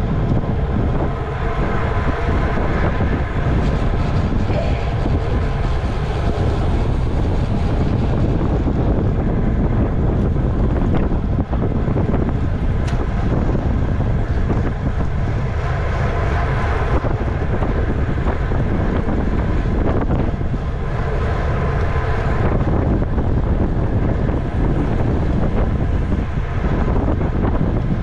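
Loud, steady wind rush on the microphone of a camera riding on a racing bicycle at race speed.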